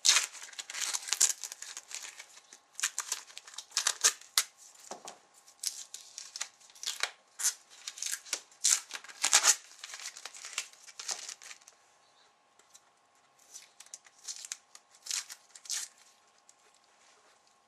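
Tape being peeled and ripped off a rifle stock in a series of irregular short rips. The rips come thickly for about twelve seconds, then thin out to a few last pulls.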